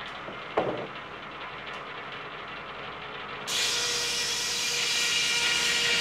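A single knock about half a second in over a low steady noise, then a loud steady hiss that starts abruptly about three and a half seconds in, with a few steady tones running through it.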